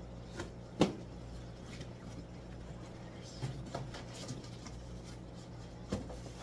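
Cardboard shipping boxes being handled and shifted, with a few sharp knocks, the loudest about a second in, over the steady hum of aquarium pumps and filters.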